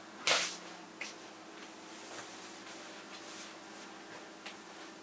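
Throw pillows being set down and arranged on a leather sofa: a soft swish of the pillow against the leather about a quarter second in, a smaller one at about a second, then light rustles and taps.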